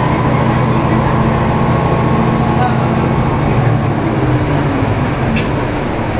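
Diesel engine of an MRT300-series railcar running steadily under way, with the rumble of wheels on rail, heard from the cab. The engine note shifts lower about three and a half seconds in, and there is a single sharp click near the end.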